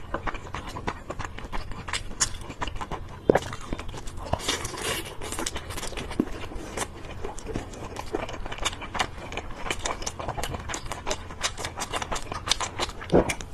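Close-up mouth sounds of a person biting and chewing chicken on a stick, a steady stream of quick wet clicks and crackles, with a sharper bite about three seconds in and another near the end.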